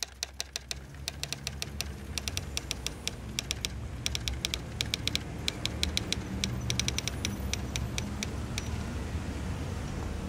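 Typewriter keys clacking in an uneven run of quick strikes that stops about eight and a half seconds in, over a low steady rumble that slowly grows louder.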